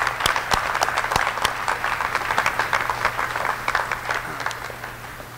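Audience applauding, with a few sharp single claps standing out close by; the applause dies away over the last second or so.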